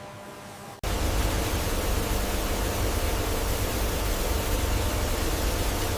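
Steady factory machinery noise: a dense, even hiss over a low rumble, with faint steady hum tones. It cuts in abruptly about a second in, after a quieter hum.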